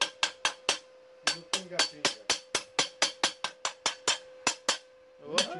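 Steel wire brush struck again and again on a steel plate to knock the slag off a freshly laid stick-weld bead: sharp metallic clicks, about four a second, with a short pause about a second in.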